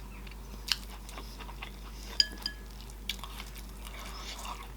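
Close-miked eating sounds with scattered sharp mouth clicks and smacks. About two seconds in, a metal utensil clinks once against a dish and rings briefly.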